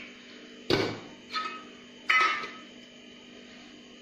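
Stainless steel bowls and lids clanking on a kitchen counter: three knocks, each with a short metallic ring, the middle one softer.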